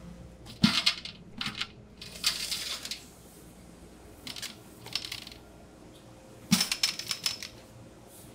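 Metal clattering and knocking of a stainless stand-mixer bowl and its flat beater while stiff dough is worked and scooped out. It comes in several short bursts, the loudest about a second in and again near the end.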